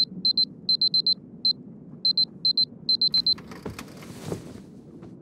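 Electronic alarm beeping in quick clusters of short, high beeps, stopping a little over three seconds in. A brief rustle of bedding follows.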